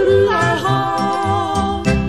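Background music: an alpine folk tune in the yodeling style, on held notes over a steady pulsing bass as it draws to a close.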